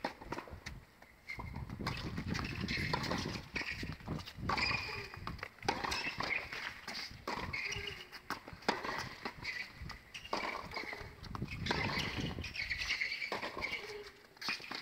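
Tennis ball struck by rackets and bouncing on a hard court during a rally: a run of sharp knocks at irregular spacing.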